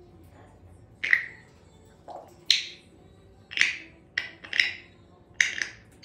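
A string of about eight sharp clicks or snaps, irregularly spaced and starting about a second in, each with a brief ring.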